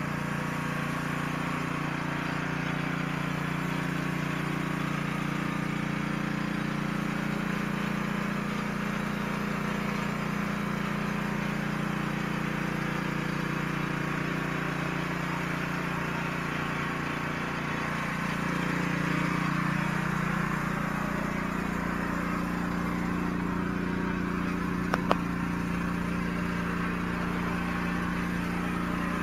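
Pressure washer running with a rotary surface cleaner spraying water onto concrete: a steady engine drone under an even hiss of water. A brief sharp click near the end.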